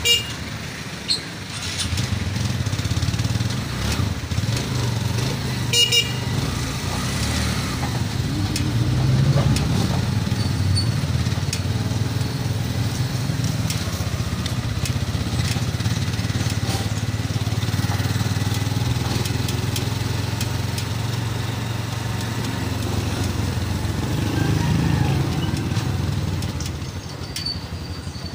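Motor vehicle engine running steadily as street traffic goes by, with a brief horn toot about six seconds in.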